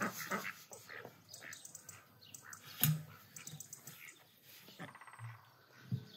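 Metal buckets set down upside down on the ground, with a sharp knock about three seconds in and another near the end. Short animal calls come in between.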